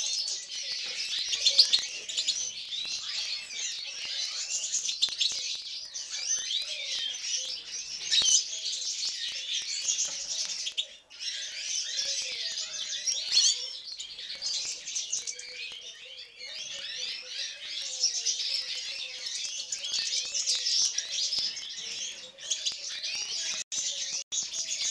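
European goldfinch singing: a long, rapid run of twittering notes with a brief break about eleven seconds in.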